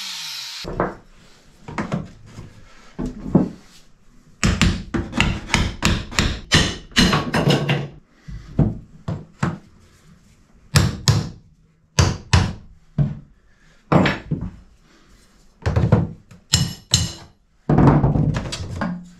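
Tongue-and-groove wooden boards being knocked into place: sharp wooden knocks and taps in quick runs, densest about five to eight seconds in. A cordless drill's whine dies away at the very start.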